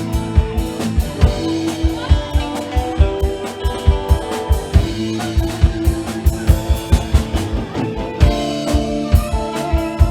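Live band playing an instrumental passage without vocals: a drum kit beating out a busy rhythm of many strikes a second under guitar and other held pitched notes.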